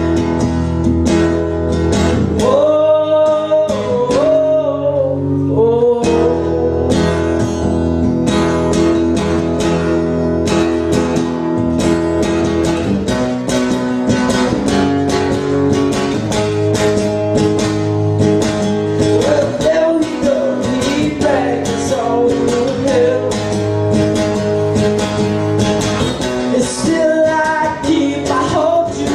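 Acoustic guitar strummed and picked through an instrumental break, with a wordless sung melody that rises and falls at times, near the start and again in the second half.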